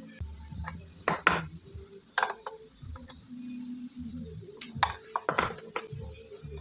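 Long-nose pliers clicking and tapping as they bend bare copper wire around a bank of electrolytic capacitors. A scatter of sharp clicks comes about a second in, again at two seconds, and in a cluster around five seconds.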